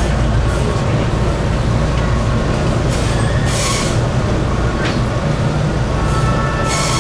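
Enoden electric train running along the rails: a steady low rumble of motors and wheels, with two short hissing bursts, one mid-way and one near the end, and a thin high whine that sets in near the end.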